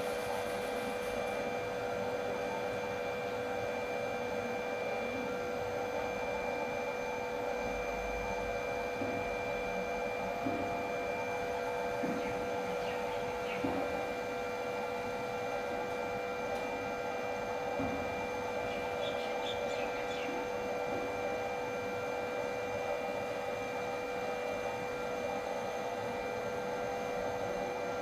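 Small electric blower running with a steady hum, forcing air through a pipe into a bucket of glowing charcoal briquettes to drive them to high heat. A few faint crackles and ticks come through now and then.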